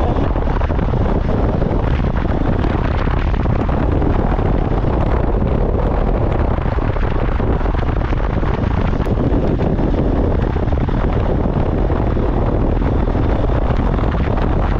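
Steady, heavy wind rumble on the microphone of a moving motorcycle, with the bike's running and road noise mixed in on a rough dirt track.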